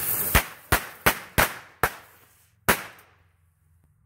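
Lightning Bolt Cracker Jacks, ground-spinning jumping jacks that blow up like firecrackers: a spinning hiss, then six sharp bangs in quick succession, the last after a short gap, about three seconds in all.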